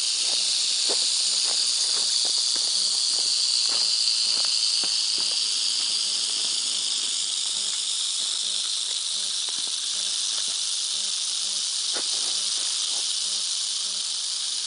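South American rattlesnake shaking its tail rattle in a continuous, steady high buzz: the defensive warning rattle.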